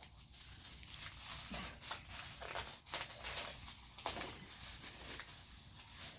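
Gift packaging being crinkled and torn open by hand, an irregular run of crackles and rips.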